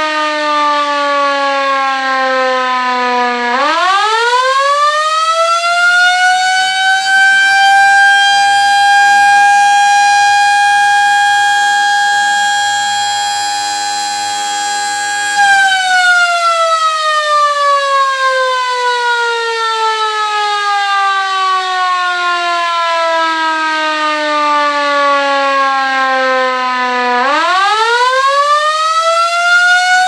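Auer S2a electric motor siren sounding the German fire-alarm signal (Feueralarm). It winds down, spins up about three and a half seconds in to a steady high tone held for about twelve seconds, then cuts off about fifteen seconds in. It winds down slowly and spins up again near the end.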